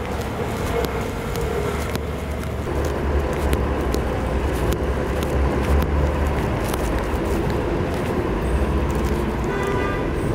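Street traffic: cars going by over a steady low rumble, a little louder for a few seconds in the middle.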